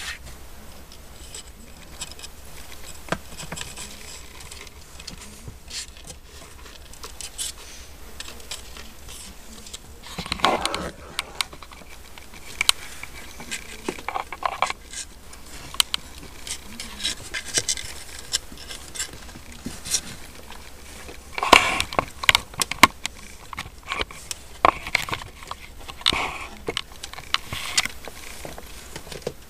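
Siamese kittens' claws and paws scrabbling and scratching on the wooden edge and floor of their box: irregular light taps and scrapes, busiest about ten seconds in and again from about twenty-one seconds on.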